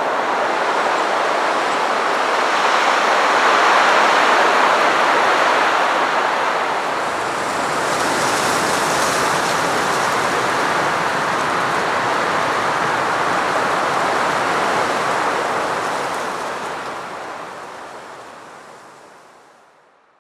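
Winter wind blowing in a steady rushing noise, swelling about four seconds in, then fading out over the last few seconds.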